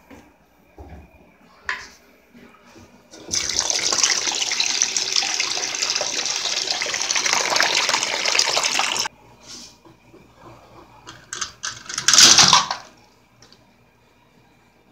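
Bathroom sink tap running water into the basin for about six seconds, then shut off abruptly; a shorter rush of water follows about three seconds later.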